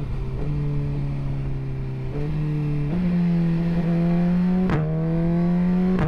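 Suzuki GSX-R1000's inline-four engine running under load while riding. Its note steps up in pitch three times in the first three seconds and then climbs steadily.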